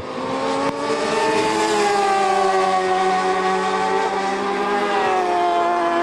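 Racing motorcycle engines at high revs as bikes pass on the circuit, the engine note sagging slowly in pitch and dipping about five seconds in.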